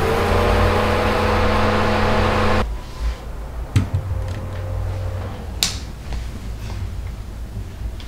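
Small electric desk fan running, a steady rush of air with a tone that rises slightly as the motor speeds up. The sound drops away suddenly about two and a half seconds in. A soft knock and then a sharp click follow as the fan's head is tilted by hand.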